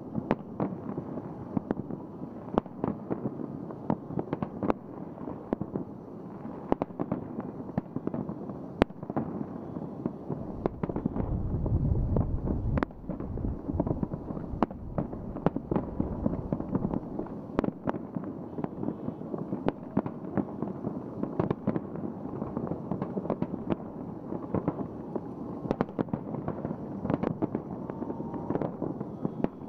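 Aerial fireworks display: a continuous barrage of sharp bangs and crackling from bursting shells. About eleven seconds in comes a heavier, deeper rumble of explosions lasting a couple of seconds.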